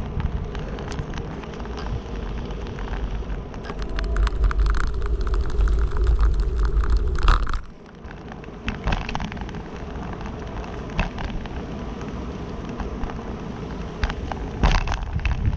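Wind buffeting the microphone of a handlebar-mounted camera on a moving bicycle, over the hiss of tyres on a concrete path, with scattered clicks and rattles. The wind rumble grows louder about four seconds in and drops off sharply about halfway through.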